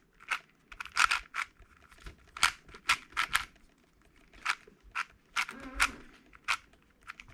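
MoYu MoFang JiaoShi RS4 M magnetic 4x4 speed cube being turned during a solve: irregular sharp plastic clacks as the layers are turned, a few a second with short pauses. The turning is loud, which the owner puts down to the cube having little lube.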